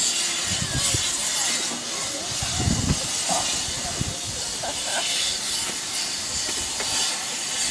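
Steam locomotive standing at the platform, venting steam with a steady high hiss.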